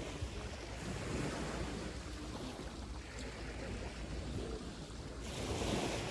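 Sea waves washing on a shore: a steady rush of surf that swells louder about five seconds in as a wave breaks. The last note of a hang drum dies away at the very start.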